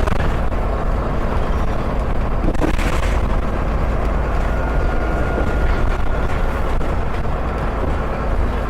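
Dennis Enviro 400 double-decker bus engine running steadily under way, with a thin, high, steady turbo whistle above the low engine rumble. A short rushing noise comes about three seconds in.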